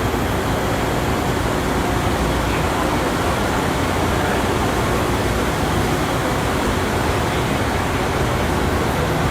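Steady, even noise of a manufacturing shop floor, with machinery and ventilation running.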